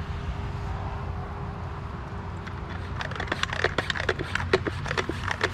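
Cleaner being sprayed from a wand onto an ATV's front end and tyre: a steady low hum, then from about three seconds in a run of irregular sharp ticks and taps.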